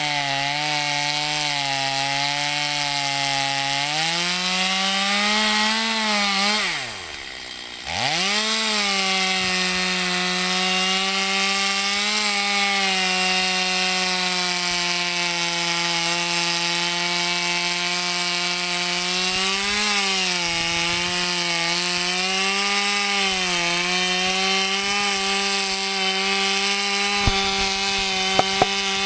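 Stihl MS250 two-stroke chainsaw cutting through a tree trunk, its engine running at high throttle. About four seconds in the engine speed rises. Around seven seconds it drops sharply for a moment, then picks up again and runs steadily. The chain has been dulled by cutting metal and is not the sharpest.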